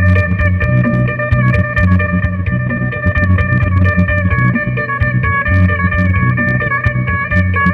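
Electric phin (Isan Thai lute) played solo: a quick plucked melody with many sharp note attacks over steady ringing drone strings, and a low pulsing bass underneath.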